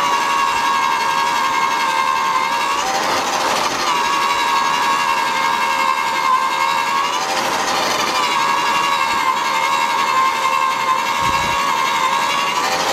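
AEG 36 V (twin 18 V battery) post hole borer's motor and gearbox whining steadily as a 250 mm auger bores into the ground on top speed. Its pitch dips briefly a few times as it loads up, struggling a little in heavy clay.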